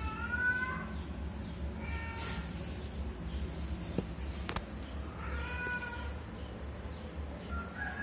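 Cat meowing in four short high cries during a kitten's birth, the first the loudest and rising in pitch. Two faint clicks near the middle.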